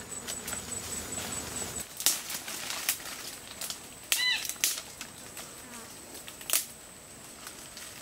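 Dry grass and twigs crackling, with several sharp separate snaps, as a bundle of dry grass is gathered and handled. A short falling chirp comes about four seconds in.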